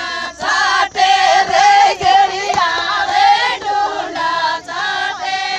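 A group of women singing a folk song together, in loud sung phrases.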